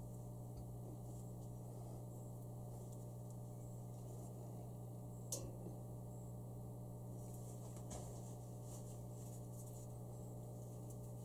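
Steady low electrical hum, with a few quiet handling sounds of a stiff steel wire being bent and fitted against a metal grill, and one sharp click about five seconds in.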